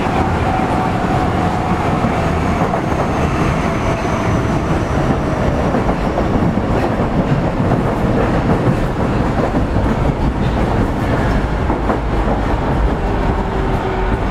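Osaka Metro 25 series subway train running: steady rumble and clatter of wheels on rail, with the motor whine slowly falling in pitch as the train slows for the next station.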